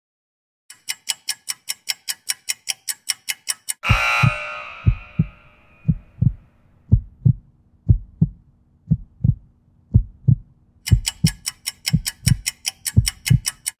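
Workout interval-timer sound effects. Rapid ticking, about five ticks a second, runs for about three seconds as the work period ends, then a short ringing hit marks the switch to rest. During the rest a heartbeat sound plays, paired low thumps about once a second, and near the end rapid ticking starts again as the rest runs out.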